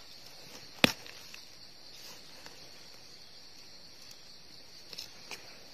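Steady high-pitched chorus of forest insects, with one sharp loud click about a second in and a couple of softer ticks near the end.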